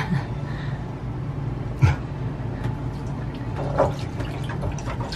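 A steady low engine hum, with scattered clicks and knocks from hose fittings being handled in the engine compartment; the loudest knock comes about two seconds in.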